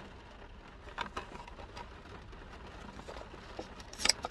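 Plastic packaging of a Halloween fake-wound pack being handled: a few faint clicks and rustles, then louder crinkling near the end.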